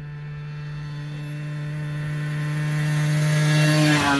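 49cc two-stroke pocket ATV engine running at a steady pitch as it rides toward and past close by, growing louder until it passes about four seconds in, when its pitch drops.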